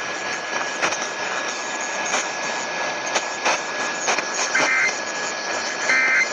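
Hiss and crackle of a weakly received radio broadcast, with a faint steady whistle. About four and a half seconds in come two short buzzy data bursts a little over a second apart: the start of the EAS end-of-message code that closes the Pennsylvania required monthly test.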